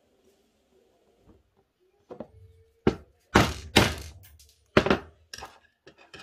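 Hammer striking a flathead screwdriver wedged under the spot-welded nickel tab of an 18650 lithium-ion cell, about five sharp blows in quick succession, knocking the tab off the battery terminal.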